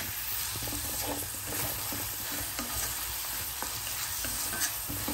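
Chopped onions sizzling in hot oil in a cast iron kadai on high heat, stirred with a spatula: a steady sizzle with frequent light scrapes and taps of the spatula against the pan.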